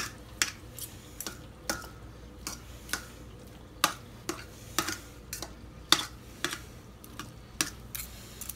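Two metal forks clinking and scraping against a stainless steel mixing bowl while pulling apart tender cooked chicken thighs: short, irregular clicks about two a second.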